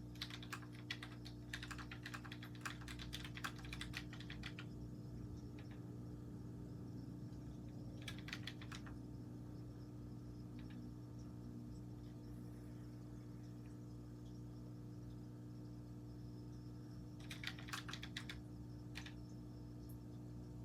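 Keychron K3 low-profile mechanical keyboard being typed on in bursts: a flurry of rapid keystrokes over the first four seconds or so, a short burst about eight seconds in, and another a few seconds before the end, with a few lone key presses between.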